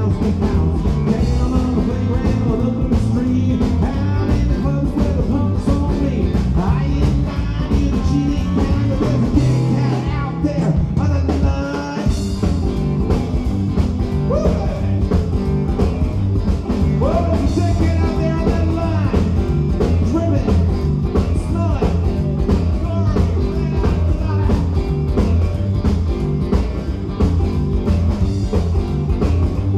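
Rockabilly band playing live: upright double bass, electric guitar and drums, loud and steady.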